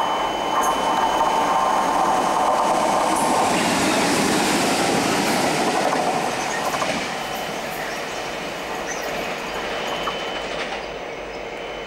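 A Class 66 diesel-electric locomotive, its two-stroke V12 diesel running, passing close with its train, engine and wheels on the rails loudest for the first seven seconds or so, then fading as it draws away.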